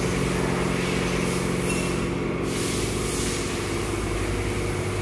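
Small engine running steadily: a constant hum with a fast low pulse.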